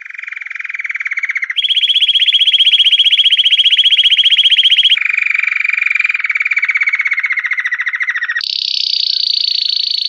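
Domestic canary singing a song made of long, very fast trills (rolls), each held for a few seconds on one pitch. The song jumps higher about a second and a half in, drops back lower at about five seconds with a slight downward slide, and leaps high again near eight and a half seconds.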